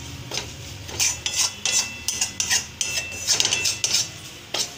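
Metal spatula scraping and clicking against a metal kadhai while stirring spices into roasted gram flour: repeated quick strokes, busier from about a second in.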